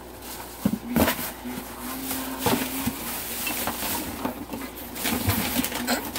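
Handling noise: a few light knocks and rustles as packaging and items are moved and set down on a table.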